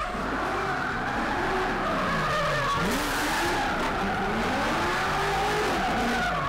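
BMW E46 coupe drifting: the engine revs rise and fall again and again with the throttle while the rear tyres squeal as they spin and slide.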